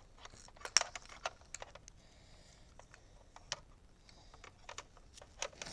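Irregular light clicks and taps, the loudest a little under a second in, from objects being handled close to the microphone.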